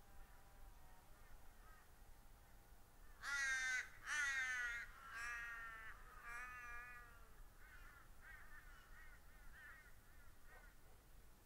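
A crow cawing: four loud, drawn-out caws starting about three seconds in, then a run of fainter, shorter caws that trail off.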